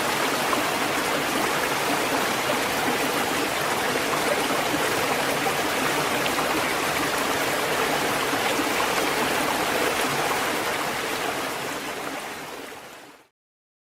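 Ocean waves washing on a shore, a steady unbroken rush of surf that fades out near the end.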